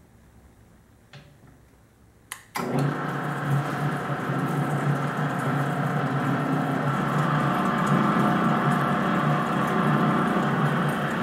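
Hobart A-200T 20-quart countertop mixer switched on: two clicks from its controls, then its 1/2 hp motor and gear-driven transmission start suddenly about two and a half seconds in and run steadily.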